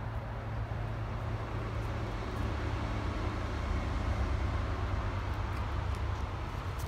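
Wind buffeting a phone's microphone outdoors: a steady low rumble with a light rustling haze over it.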